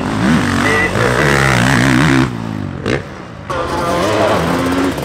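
Beta 450 motocross bike's four-stroke single-cylinder engine revving up and down hard as the throttle is worked. The engine note falls away for about a second midway, then picks up again.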